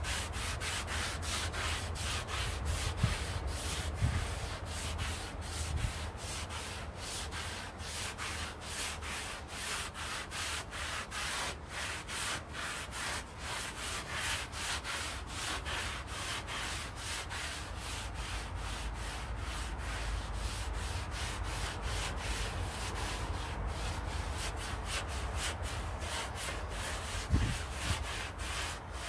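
Rhythmic rubbing strokes, about three a second, from hand work such as scrubbing or wiping a surface, with a single knock near the end.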